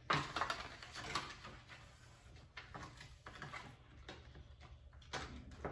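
Child's scissors snipping through paper, several separate cuts with paper rustling between them, the loudest just after the start.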